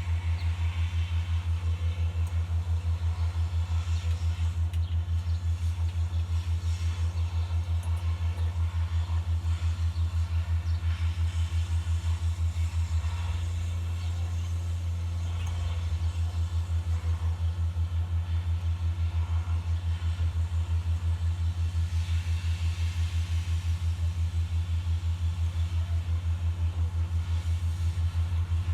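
A steady, low machine hum that throbs about three to four times a second, going smooth for a few seconds about halfway through.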